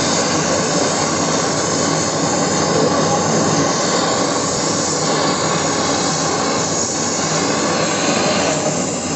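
LPG brazing torch flame burning with a loud, steady rushing hiss while it heats a metal workpiece.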